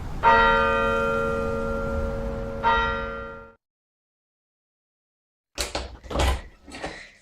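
A bell struck twice, about two and a half seconds apart, each stroke ringing on with several steady tones before the ring cuts off. After a pause, a few short noisy bursts come near the end.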